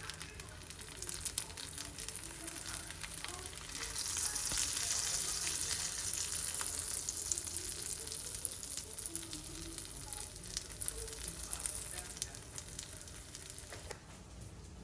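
Food sizzling and crackling in a hot pan, louder from about four seconds in and dying down near the end.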